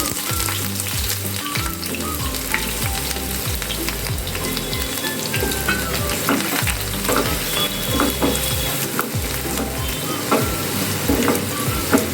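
Chopped onions sizzling and frying in hot oil in a pan, stirred with a spatula that scrapes and clicks against the pan every so often.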